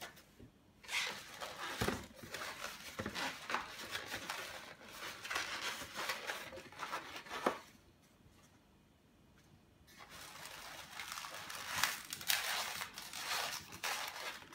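A green 360 latex twisting balloon being twisted and squeezed by hand, the rubber rubbing and crinkling with a few sharp clicks. It stops for about two seconds past the middle, then starts again.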